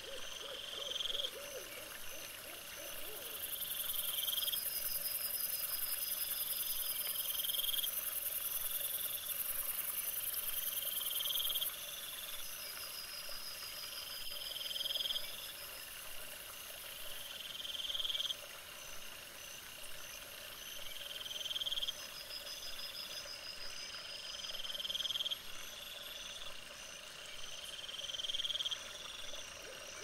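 Night woodland chorus: a short rising call repeating about every three seconds, with a fainter pulsing call higher up and a steady high insect-like hiss that is loudest in the first third.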